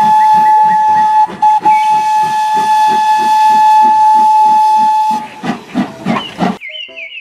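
Steam locomotive whistle blowing one long steady note, broken for a moment about a second in, over the engine's rhythmic chuffing at about four beats a second. The whistle stops about five seconds in, the chuffing goes on briefly, and short high chirpy sounds come in near the end.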